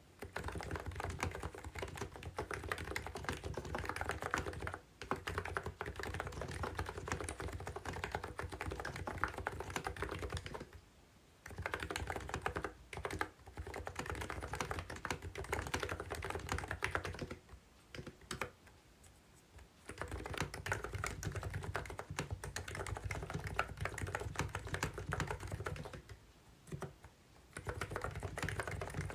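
Typing on a COX CNK84W mini keyboard with electro-capacitive (contactless) switches: a fast, steady run of keystrokes, broken by a few short pauses, the longest about two seconds a little past the middle.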